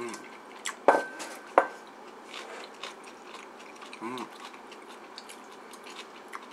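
Eating at the table: about a second in, two sharp clinks of chopsticks against tableware, under a second apart and each ringing briefly. Between them come soft chewing and small mouth noises.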